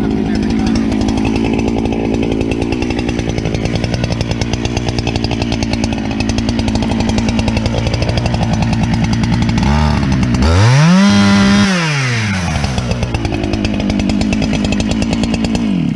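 Husqvarna 395 two-stroke chainsaw running at high throttle, its 24-inch bar cutting through a log. About ten seconds in the engine pitch dips, climbs and holds briefly, then sags again. The saw comes off the throttle at the end as the cut finishes.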